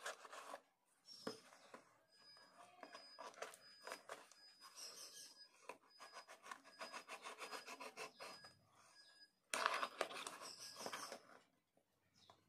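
Packing tape and a cardboard parcel being worked open by hand: a run of scratching and scraping at the tape and cardboard, then a louder rip of tape coming away about ten seconds in.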